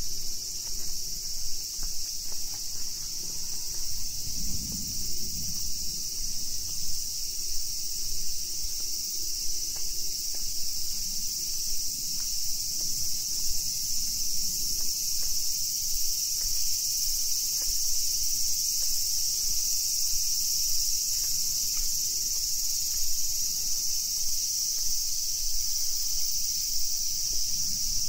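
Steady high-pitched chorus of insects, a continuous shrill hum with no breaks.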